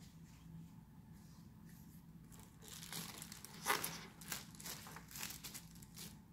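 Clear plastic bag crinkling as it is handled around a flat plaque, in a run of short rustles that begin a little before halfway through. A faint steady hum sits under it.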